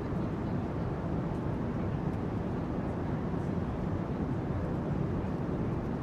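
Airplane cabin interior noise: a steady, low rumble that holds an even level throughout.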